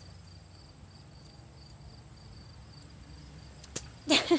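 Crickets chirping steadily. Near the end, a water balloon bursts on the grass with one short sharp pop, followed at once by a child's brief exclamation.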